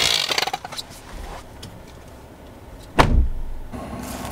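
A pickup truck's door is opened with a click and a rustle of movement, then slammed shut with one heavy thud about three seconds in. A steady outdoor background follows near the end.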